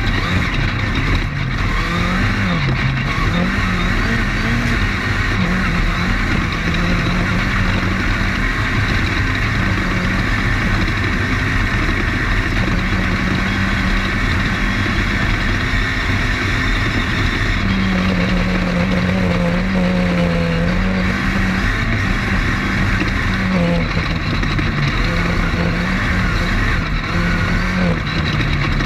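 Off-road race car's engine running hard at racing speed, its note rising and falling with throttle and gear changes, over constant loud rattle and road noise of the car driving over rough terrain, heard onboard.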